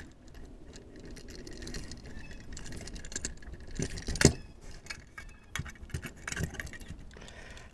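Small clicks and rattles of a screwdriver tightening a terminal screw on a 30 amp RV plug, with metal parts knocking against the plastic plug body. There is one sharper click about four seconds in.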